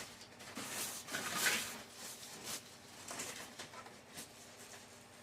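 Irregular rustling and crinkling of foil booster-card packs and packaging being handled, loudest about a second in.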